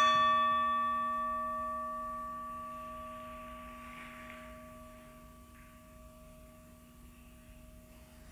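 A meditation bell struck once, ringing with a clear tone that slowly fades away over several seconds, marking the start of a guided meditation.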